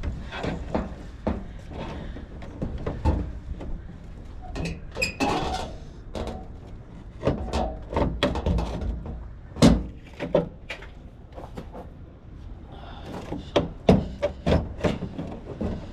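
Plastic turn-signal lamp housing being worked and pushed into place by hand: irregular clicks, knocks and rubbing of plastic parts, with one sharper knock about ten seconds in.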